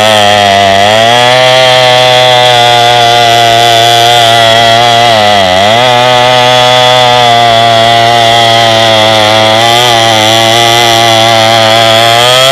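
Early-1970s Homelite 66 Super Wiz gear-drive chainsaw with a bow bar, running at full throttle while cutting through a white oak log. Its engine note sags under load about a second in and again midway, then picks back up.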